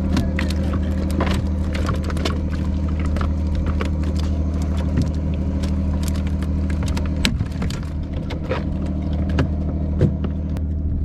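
A fishing boat's engine running steadily, with scattered sharp knocks and slaps from freshly caught queen fish flapping against the boat's hold.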